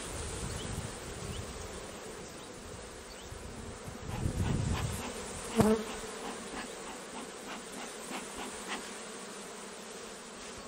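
Honeybees buzzing steadily around an open hive, with two breathy puffs from a bee smoker's bellows, one near the start and one around four seconds in, and a single sharp click a little past halfway.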